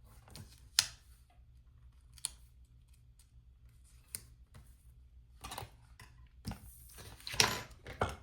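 Scissors snipping and sticker paper being handled: a few separate sharp clicks, then a denser run of rustling snips near the end.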